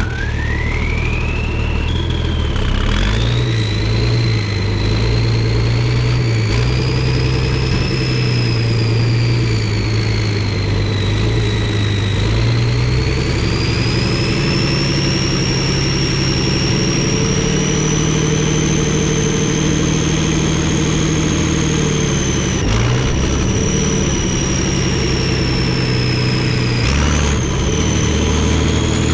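Multifuel diesel engine of an M51 5-ton 6x6 military dump truck running under way with a load, with a high whine that rises as it gets moving and then rises and falls with the engine speed. The engine note steps down and up several times.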